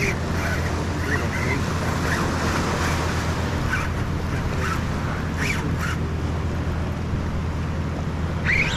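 Steady wash of surf at a fishing pier, with wind buffeting the microphone and a few short high calls now and then.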